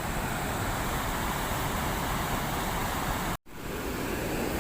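Steady rushing of flowing river water, broken by a sudden brief dropout about three and a half seconds in.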